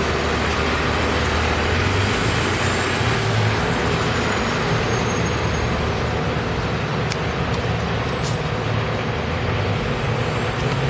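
Transit bus engine running with a steady low drone as the bus pulls away from the stop and drives off.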